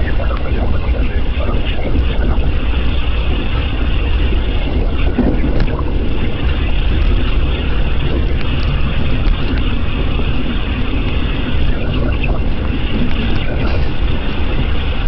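Steady running noise of a train heard from inside the carriage: a constant rumble of the wheels on the rails with a hiss above it.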